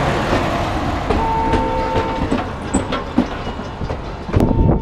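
Rail car refurbishment work noise: a steady mechanical din with a held humming tone for about a second, and scattered metallic knocks and clanks. A louder run of knocks comes near the end.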